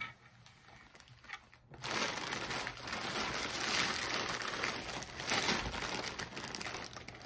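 Plastic poly mailer bag crinkling and rustling continuously as it is handled and pulled at to open it, starting about two seconds in.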